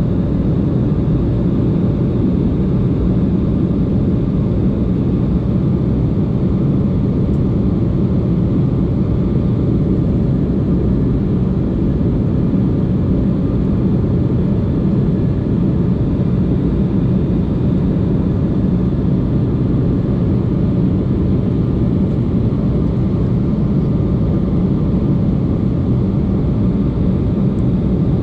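Passenger airplane cabin noise: the steady low rumble of the engines and airflow, heard from inside the cabin.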